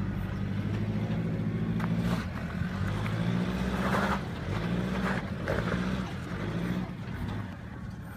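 Nissan Patrol's ZD30 3.0-litre four-cylinder turbo-diesel engine pulling the vehicle up a steep rocky off-road track at low speed, its note rising and falling as the throttle changes. A few brief crunching noises from the tyres on rock, the loudest about four seconds in.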